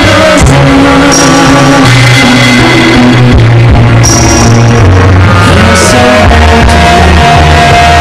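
Loud backing music in a rock style.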